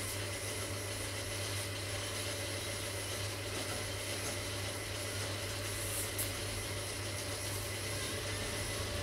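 Steady low background hum, unchanged throughout, with one brief faint click about six seconds in.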